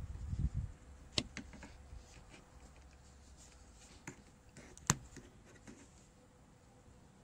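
Hand work on a car door's trim and clips: a few sharp clicks and light taps, the loudest about a second in and about five seconds in, after a brief low rumble at the start.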